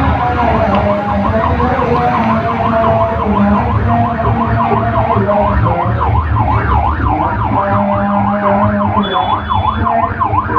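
Vehicle siren in a fast yelp, its pitch sweeping up and down about three times a second, over the low rumble of vehicle engines.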